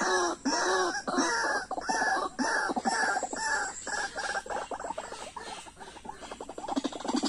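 White-breasted waterhen (ruak-ruak) calling, a regular series of arched notes about two a second. The calls weaken in the middle and grow louder again near the end.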